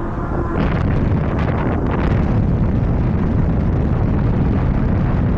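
Strong wind buffeting the action camera's microphone during an e-bike ride: a loud, continuous, gusty rumble.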